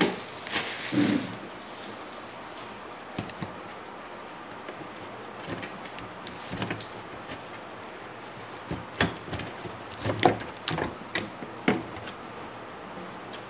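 Scattered knocks, clicks and clatter of a flat-screen LED TV's casing being handled on a workbench, sparse at first and then a quick run of sharp knocks about nine to twelve seconds in as the set is tilted up.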